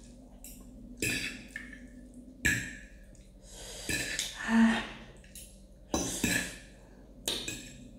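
A person breathing sharply in and out through the mouth between mouthfuls, a reaction to the heat of double-spicy ramen noodles. About six short breaths, with a few sharp clicks among them and a brief hum near the middle.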